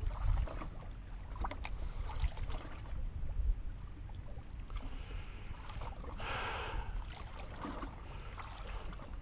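Open-boat ambience on a lake: a steady low wind rumble on the microphone with scattered light knocks and clicks, and a brief hiss about six and a half seconds in.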